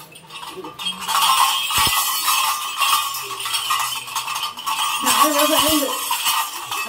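Temple puja bells ringing and clinking. About five seconds in, a voice calls out briefly over them.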